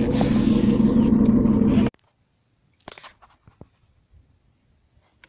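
A steady engine running with a constant low hum, cutting off suddenly about two seconds in; after that only a few faint clicks.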